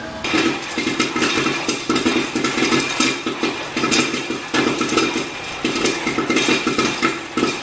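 Whirly Pop stovetop popcorn popper being cranked on the stove: a rhythmic rattling clatter from the crank and stirring arm in the pot, about two strokes a second, with scattered sharp clicks.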